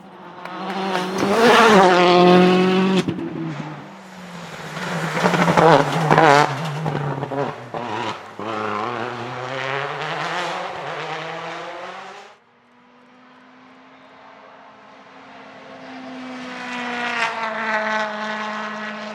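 Rally car engines at full throttle: one car revving hard with quick gear changes and lifts as it passes close, then after a sudden cut another car heard approaching, its engine note building.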